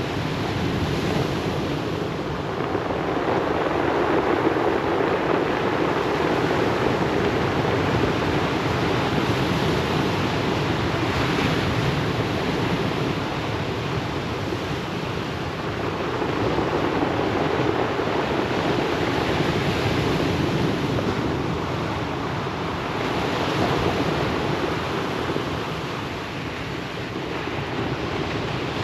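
Ocean waves breaking and washing over a pebble beach, a steady surf that swells and eases every several seconds, with some wind on the microphone.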